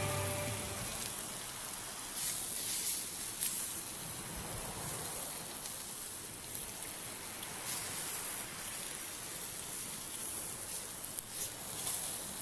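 Bacon sizzling and crackling in a frying pan over a portable gas canister stove, with a few sharper pops spread through.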